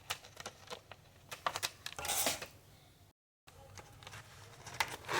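Doll box of cardboard and plastic being handled for unboxing: scattered light clicks and taps, with a brief scraping rustle about two seconds in. The sound drops out completely for a moment just after three seconds in.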